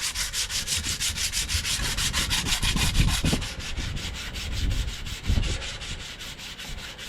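Hand sanding of a wheel rim's bead seat with coarse sandpaper, in fast, even back-and-forth strokes of about six a second, which grow lighter in the second half, with a few low bumps. The rim's sealing surface is being cleaned up to cure a slow leak at the tyre bead.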